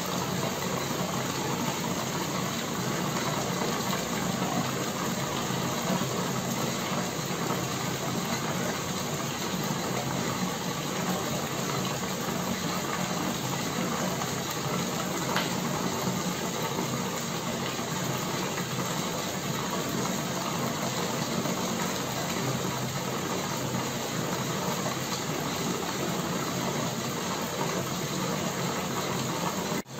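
Homemade bubble-wall fountain running: an air pump drives air through an air stone, and the bubbles rise through the water-filled plexiglass panel in a steady hissing, bubbling rush with a low hum underneath.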